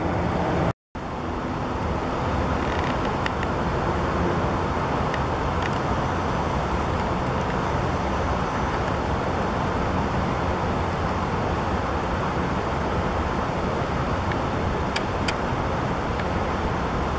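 Steady outdoor background noise, a low rumble with a hiss over it, that drops out for an instant about a second in. A few faint clicks come near the middle and end.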